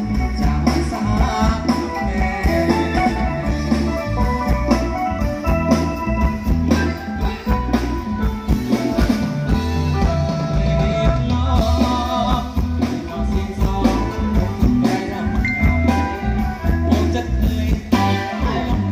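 Live band music played loud through a stage PA: a male singer over electric guitars, a drum kit and a strong, steady beating bass.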